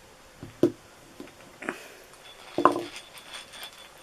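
A few light knocks and clicks of hand drill parts and packaging being handled, the loudest about two and a half seconds in.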